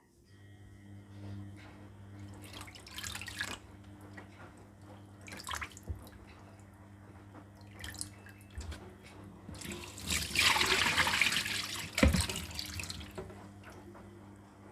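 Water from a tap splashing in a sink as sea grapes are rinsed, with scattered splashes and a louder gush of running water about ten seconds in, a sharp knock just after it, and a steady low hum underneath.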